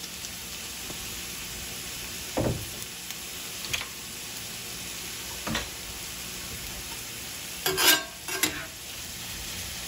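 Chopped onions, peppers and garlic sizzling steadily in butter and oil in a cast iron skillet. A dull knock sounds about two and a half seconds in, and a metal spatula scrapes against the pan twice near the end.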